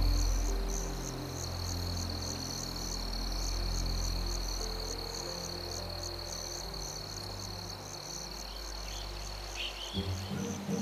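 Night-time insect chorus: a steady high trill with a chirp pulsing about two to three times a second, over soft, low sustained music notes that fade out near the end.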